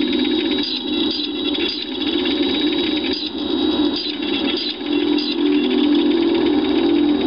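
Film sound effects for a Terminator endoskeleton skull: a steady low mechanical hum with a series of short, sharp high clicks, like servos and machinery.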